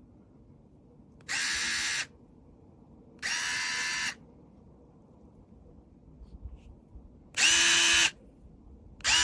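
HOTO 3.6V cordless electric screwdriver's motor run in four short bursts, each under a second, whining up to speed and holding a steady pitch; the last two bursts are louder.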